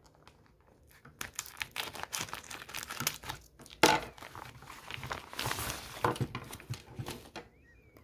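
Clear plastic packaging bag crinkling and crackling as it is opened and a power strip with a coiled cord is pulled out, with one loud sharp crack just under four seconds in.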